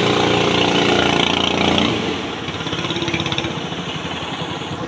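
Racing boat's Ryu 18 hp petrol engine running flat out with a loud, steady drone. About two seconds in it drops in level and breaks into a fast, rough putter.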